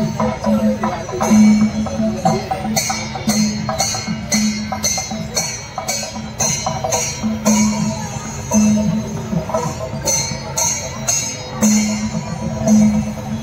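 Kerala temple festival music played live: metal cymbals clash in a steady beat, about twice a second, over drums and a sustained pitched instrument.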